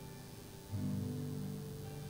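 Quiet instrumental music of sustained held chords, with a new, louder chord coming in about three quarters of a second in.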